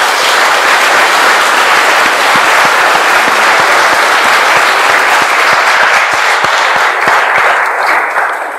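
Audience applauding steadily, tapering off near the end.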